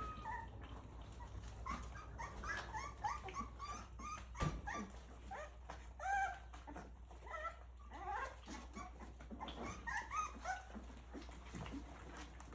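Three-week-old Rottweiler puppies whimpering and squealing in many short, high squeaks, over a steady low hum.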